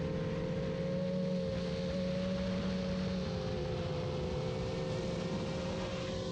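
Brushless motors and propellers of a 7-inch FPV quadcopter in flight: a steady, even hum of several held tones whose pitch wavers slightly with throttle. About six seconds in, a higher hiss fills in.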